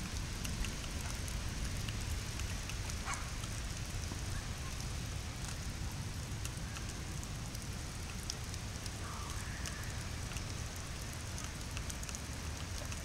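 Steady rain falling on a flooded street and lawn: a constant hiss with scattered small drop ticks over a low rumble.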